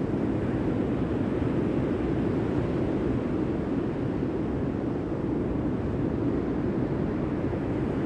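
Steady low rushing noise of sea surf and wind at the microphone, even throughout with no distinct wave crashes.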